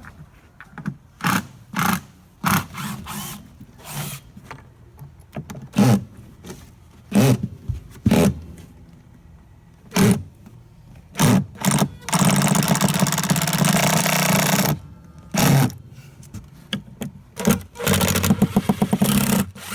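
Power driver backing screws out of wooden deck boards: a series of short whirring bursts, one longer run of about three seconds a little past the middle, and a quick run of rapid pulses near the end.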